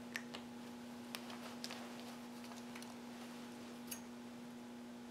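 Faint, scattered light ticks and clicks from hands handling nylon parachute suspension lines, over a steady low hum.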